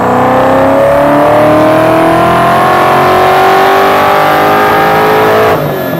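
Saleen S-351's 351-cubic-inch V8 exhaust during a chassis-dyno pull, the engine note climbing steadily in pitch as the revs rise. About five and a half seconds in, the throttle closes and the level and pitch drop suddenly.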